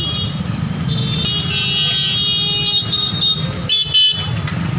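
Busy street noise: a steady low rumble of traffic with high-pitched vehicle horns tooting through the middle, and the sound drops out briefly just before the four-second mark.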